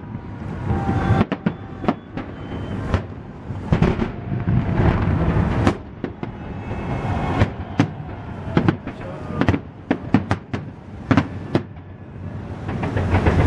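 Fireworks going off in an irregular barrage of sharp bangs and cracks, at times several a second, over a steady low rumble.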